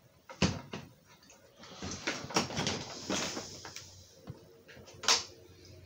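Plastic parts of a GI Joe Classified HasLab Dragonfly toy helicopter being handled and fitted together during assembly. A sharp click comes about half a second in and another near the end, with a busy stretch of rattling and small clicks in between.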